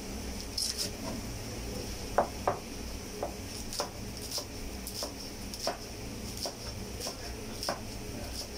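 Kitchen knife chopping a stack of romaine lettuce leaves on a plastic cutting board: short crisp knocks of the blade on the board, about one and a half a second, the two sharpest a little after two seconds in. A steady low hum runs underneath.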